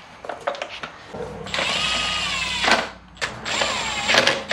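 Cordless drill/driver running in two short bursts, the first about a second and a half long and the second under a second, its whine dropping in pitch as each run ends. It is driving fasteners as the pressure washer's engine cover goes back on. A few light knocks of handling come before the first run.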